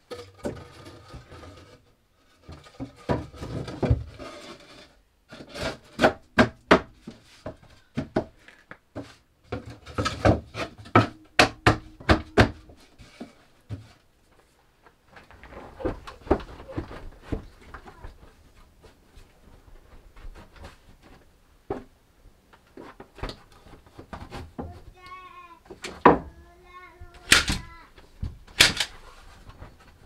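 Irregular sharp knocks and clatter in a small room, in clusters. Near the end there are a few brief high-pitched vocal sounds.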